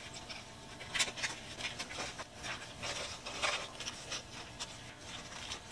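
Faint, scattered light taps and rustles of food or kitchen utensils being handled.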